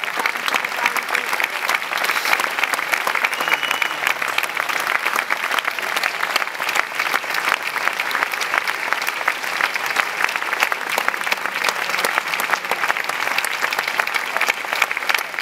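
A crowd applauding: dense, sustained clapping that holds steady throughout.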